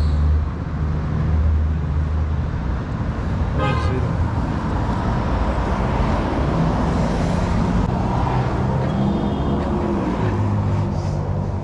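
Street traffic noise: a steady low rumble of cars, with a brief horn-like toot about four seconds in.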